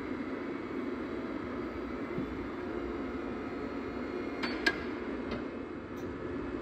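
Box truck's rear liftgate being worked from its pendant control: a steady mechanical hum, with a few light metallic clinks from the gate between about four and a half and six seconds in, the sharpest one near the middle.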